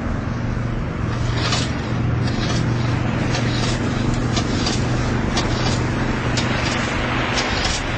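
A steady engine-like rumble with a constant low hum. From about a second in, a scattered run of short sharp clicks or rattles sits over it.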